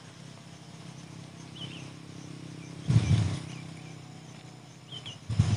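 Faint background ambience with a steady low hum, a few short high chirps, and a brief low noise burst about three seconds in, with another just before the end.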